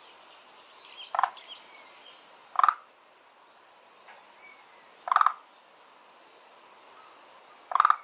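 A frog calling from a garden pond: four short, rattling croaks spaced roughly two to three seconds apart, with faint bird chirps in the background.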